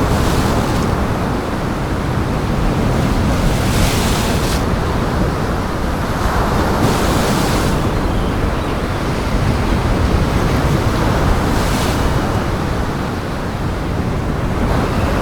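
Heavy surf and strong wind: big waves breaking over a steady rush of water, with a hissing surge of spray every few seconds.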